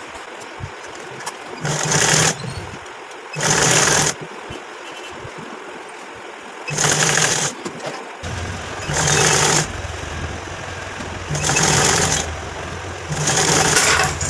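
Domestic sewing machine stitching a waistband seam in short runs of about a second each, six times, with brief pauses between runs as the fabric is guided.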